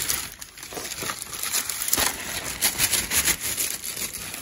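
Plastic bags and packaging rustling and crinkling as items are handled and rummaged through in a crate, with a sharper knock about two seconds in.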